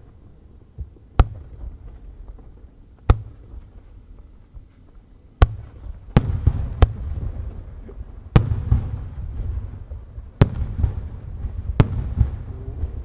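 Aerial firework shells bursting overhead: about eight sharp booms at uneven intervals, each trailing off in a low rolling rumble.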